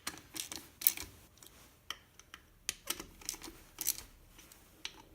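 Hand ratchet clicking in short irregular runs of sharp clicks as bolts are run down by hand.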